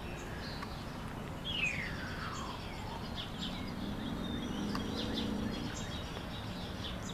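Small birds chirping in short high notes, with one long falling whistle about a second and a half in. A low hum rises and fades again through the middle.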